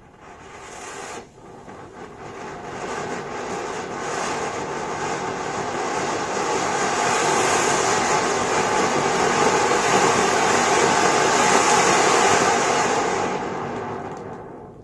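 Large flower pot (anar) fountain firework burning. Its hissing rush of sparks builds over several seconds, holds steady and loud, then dies away near the end.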